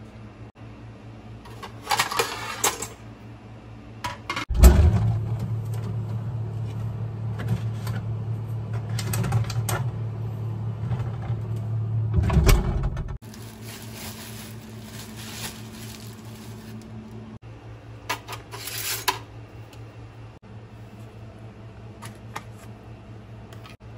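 Plastic packaging rustling and crinkling as bread and a margarine tub are handled. Partway through, a steady low hum runs for about eight seconds and cuts off sharply.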